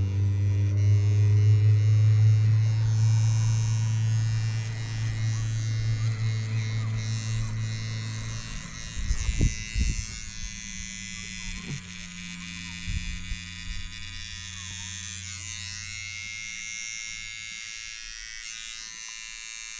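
Electric hair clippers buzzing steadily while cutting hair, loud for the first several seconds, then fainter until fading out near the end. A few short knocks come in the middle.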